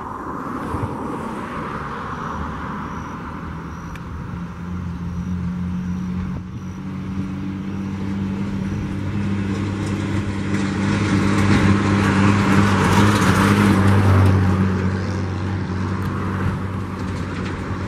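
Jet engines of a taxiing Boeing 737-700 (CFM56-7B turbofans) running at low taxi thrust: a steady whine and rumble with a low hum underneath. It grows louder to a peak about thirteen seconds in, then eases off a little.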